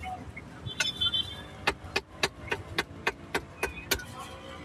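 Cleaver chopping meat on a block, a quick run of sharp strikes about three a second that stops about four seconds in. A brief high-pitched tone sounds about a second in.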